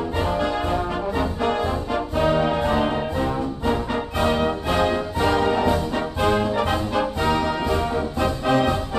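Background music led by brass with an orchestra, playing short notes at a steady pace.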